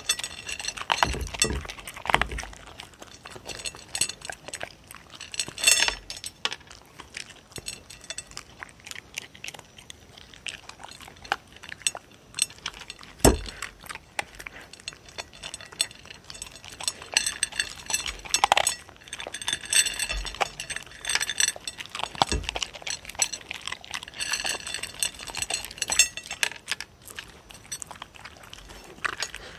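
Dogs eating dry kibble from a plate close to a microphone: irregular crunching and kibble clinking against the plate, with a few louder knocks, the loudest about halfway through.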